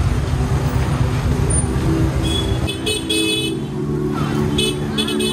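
Street traffic: a steady low engine rumble with vehicle horns honking, once around the middle and again near the end.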